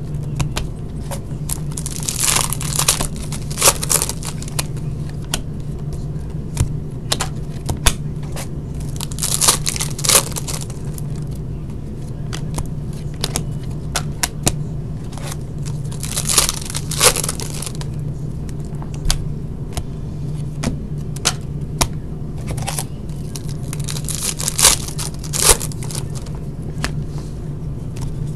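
Trading-card pack wrappers being torn open and crinkled, about once every seven seconds, with small handling clicks between the tears over a steady low hum.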